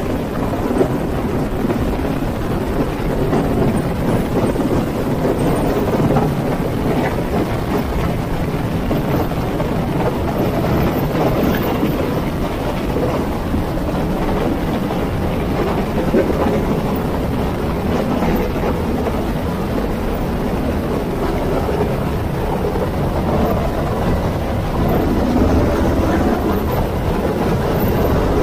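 Loud, steady noise of a UH-60 Black Hawk helicopter hovering low overhead, its rotor downwash buffeting the microphone.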